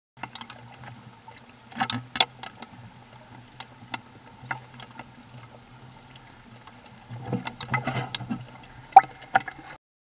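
Water lapping and splashing at the hull of a small ocean rowing boat, with irregular clicks and knocks over a low steady hum. The sharpest knocks come about two seconds in and again a second before the end.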